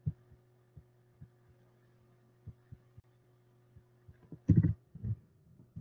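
Steady low hum in the recording, with scattered faint clicks and a louder short thump about four and a half seconds in, followed by two smaller ones.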